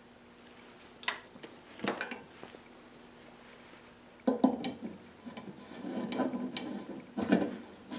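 A couple of short clicks and taps, then from about four seconds in a run of metal clinks and scraping as a stainless steel valve fitting is threaded by hand onto the Teflon-taped end of a steel pipe held in a vise.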